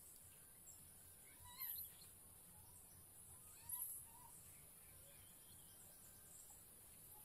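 Quiet forest ambience: a steady high-pitched insect buzz, with two short bird calls about one and a half and three and a half seconds in.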